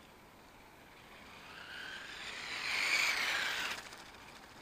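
Small electric radio-controlled car passing close by on asphalt: a high motor and gear whine mixed with tyre noise. It rises as the car approaches, is loudest about three seconds in, then falls away quickly.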